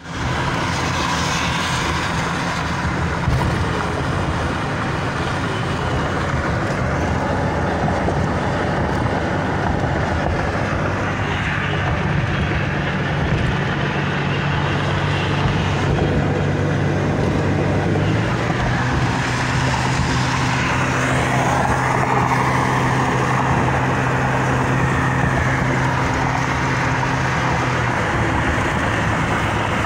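Ford pickup truck driving at highway speed on a wet road, heard from inside the cab: a steady engine drone under tyre and road noise. About eighteen seconds in, the engine's note changes pitch.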